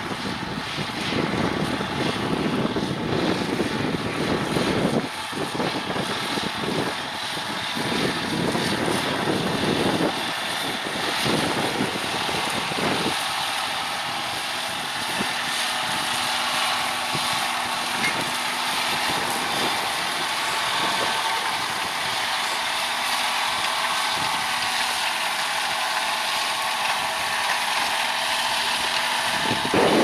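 A John Deere 6R 250 tractor's six-cylinder diesel engine running steadily under load while it pulls a plough through the soil. Wind buffets the microphone in gusts during the first half.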